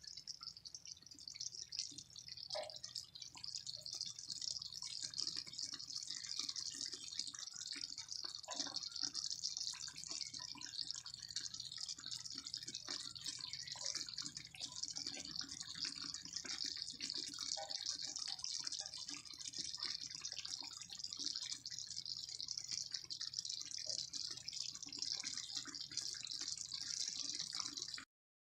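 Oil sizzling in a frying pan: a steady hiss with scattered small pops and crackles, cutting off abruptly near the end.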